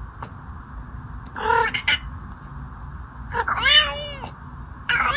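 A cat making strange meows, three calls in all: a short one about a second and a half in, a longer one that rises and then falls in pitch, and a third that starts near the end.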